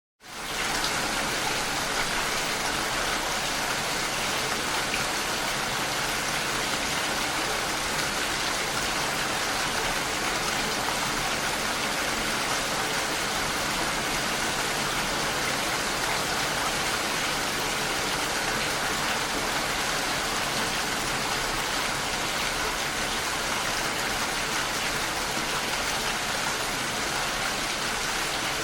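Steady rain falling, an even hiss of drops that fades in over the first half second and then holds constant.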